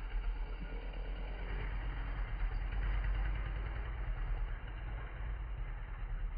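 A 125cc ATV engine idling with a steady low rumble.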